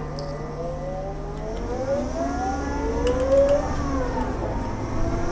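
City bus drivetrain whine rising in pitch as the bus gathers speed, then falling away about four seconds in, over a steady low engine rumble.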